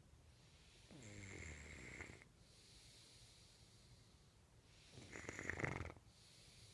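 Sleeper snoring: two snores about four seconds apart, one about a second in and a louder one near the end.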